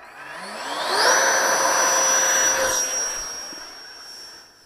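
64mm FMS 11-blade electric ducted fan, driven by a Turnigy 2815 3500kV brushless motor, whining at high speed. The whine rises in pitch over the first second, holds steady and high, steps slightly lower about two and a half seconds in, and then fades.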